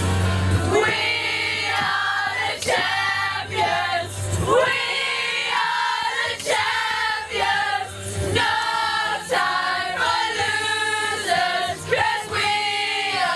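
Several voices singing a song together, with music.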